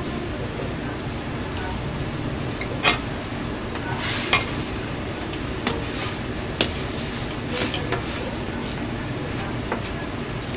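Steady hiss of a gas-fired wok station, with noodles boiling in a steel wok and vegetables frying in the pan beside it. Scattered sharp clinks of a wire-mesh strainer and wooden chopsticks on the wok as the noodles are stirred and lifted out.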